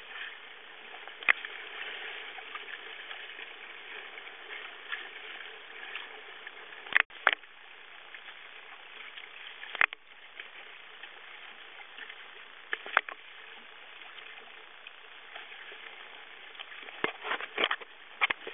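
Water rushing and splashing along the hull of a Hobie Adventure Island sailing kayak under way in chop, a steady hiss. Sharp knocks come every few seconds and bunch together near the end.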